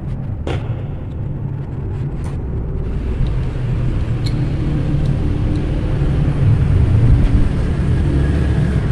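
Steady low rumble, with a few light clicks as insulated wire is handled.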